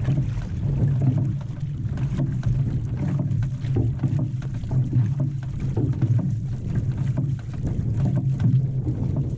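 Outrigger canoe (waka ama) under paddle: water rushing and splashing along the hull and at the paddle blades, swelling about once a second with the strokes, over a low rumble of wind on the microphone.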